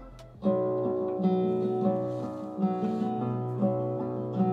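Strummed acoustic-guitar music playing fairly loudly through a Creative Stage Air compact soundbar, streamed over Bluetooth from a phone. It starts abruptly about half a second in.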